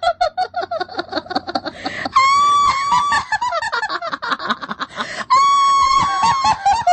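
Horror-comedy ghost sound effect: rapid, choppy cackling laughter, broken twice by a long, high, steady shriek of about a second each, one about two seconds in and one about five seconds in.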